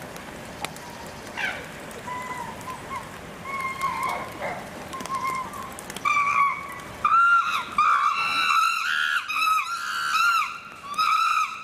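Chimpanzees screaming: faint calls at first, then from about six seconds in a run of loud, high, arching screams, one after another. The screams go with a bared-teeth fear grimace, a sign of fear and excitement amid tension among the chimps.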